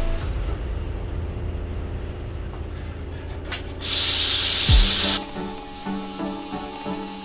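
Handheld plasma cutter cutting steel plate: a loud hiss of air and arc from the torch starts about four seconds in and lasts over a second, with a dull thump in the middle, then drops to a lower steady hum.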